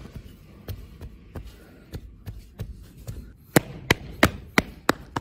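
Moulding sand being packed into a stacked casting flask: soft knocks from a hand rammer tamping the sand, then, from just past the middle, a run of loud, sharp slaps about three a second as palms pat the sand surface firm.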